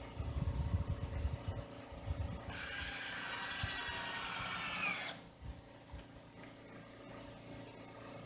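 Low rumbling thumps for about two seconds, then a power drill runs steadily for about two and a half seconds, probably driving a screw into wood, its whine dipping just before it stops.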